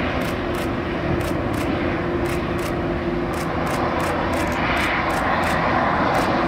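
The four CFM56 turbofan engines of an Airbus A340-300 at takeoff thrust as the airliner rotates and lifts off: a steady distant jet rumble and hiss that swells a little about five seconds in. Faint high ticks recur about twice a second over it.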